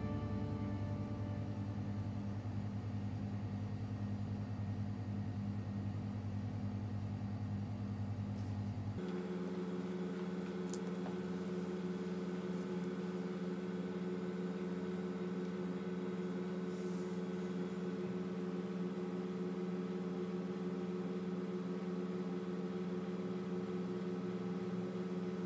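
Steady mechanical hum made of several steady tones. About nine seconds in, the low hum drops away and a higher-pitched set of steady tones takes over.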